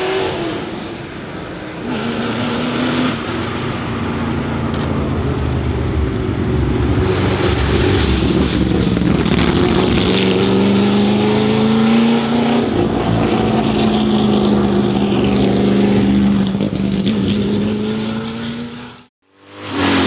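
Racing car engine accelerating hard up the hillclimb, its pitch climbing through the gears with shifts about two and thirteen seconds in, as a Ford GT40's V8 passes close by. The sound fades out quickly near the end.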